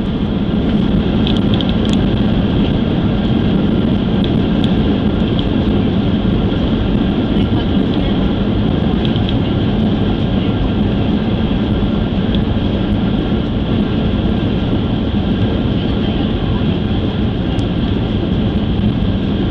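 Loud, steady rush of a Boeing 737-800's jet engines and airflow heard inside the cabin during the landing, swelling at the start and easing slightly near the end.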